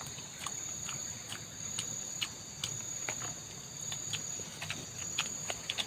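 A steady, high-pitched drone of insects in the forest, with scattered small clicks and taps over it.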